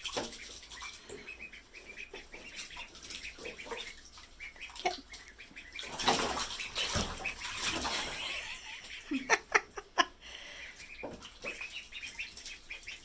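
Ducklings paddling and splashing in shallow bathtub water, with a few short peeps.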